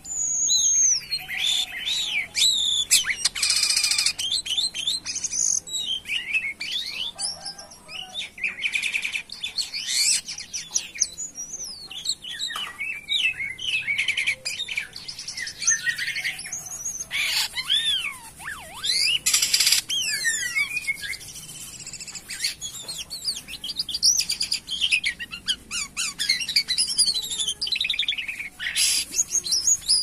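White-shouldered starling (jalak kapas) singing vigorously and nonstop. Its song is a rapid, varied run of whistles, slurred rising and falling notes and chattering phrases, with a few short harsh rasps mixed in.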